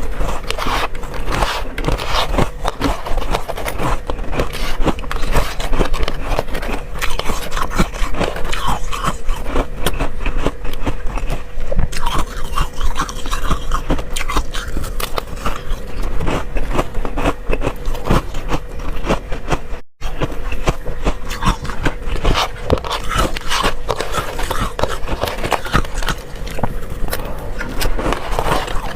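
Close-miked biting and chewing of freezer frost, a dense run of crunchy, crackling bites and scrapes, broken once by a brief cut about two-thirds of the way through.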